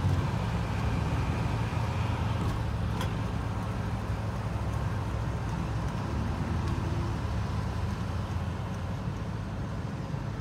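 Steady low hum of a car's engine and road noise, heard from inside the cabin as it creeps along in slow freeway traffic.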